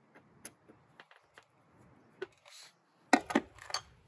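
Small clicks and taps of metal tools working a red aluminium Air Lift top mount and its new pillow-ball bearing, then three sharp knocks in quick succession about three seconds in, the loudest sounds here.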